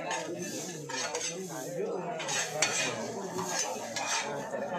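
Hoes and shovels scraping and scooping through a heap of soil and plant debris being mixed into compost, metal blades grating on the hard ground in irregular strokes several times a second, with one sharper clack about two and a half seconds in.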